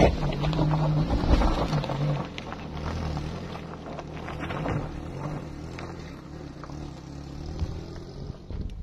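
Daihatsu Gran Max campervan's engine pulling up a loose dirt slope, loudest as it passes close in the first two seconds, then fading as it climbs away.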